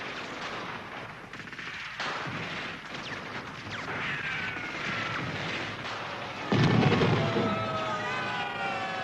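Film battle sound effects: explosions and gunfire, the loudest a heavy blast about six and a half seconds in, with high falling whistling tones running through.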